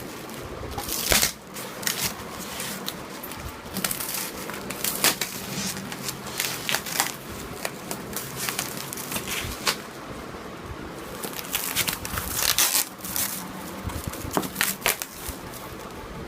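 Packaging being handled and unwrapped: irregular crinkling and rustling with scattered sharp crackles, loudest about a second in and again near the end.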